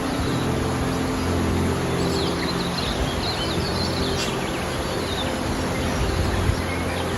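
Steady rush of a mountain stream with small birds chirping, loudest a couple of seconds in, over soft music of long held notes.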